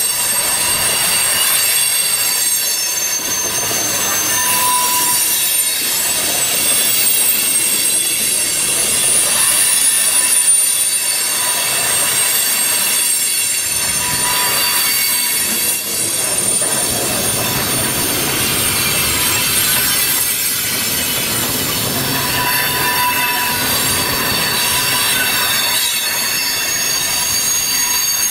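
Freight train of tank cars rolling steadily past at close range, its steel wheels squealing in several sustained high-pitched tones over the rumble of wheels on rail.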